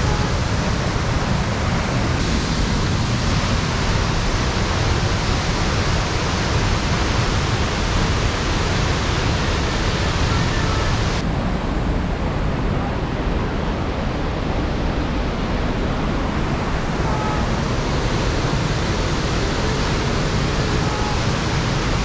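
Steady rushing of a large mountain waterfall, a dense even wash of falling water. About halfway through the hiss turns duller as the higher part of the sound drops away.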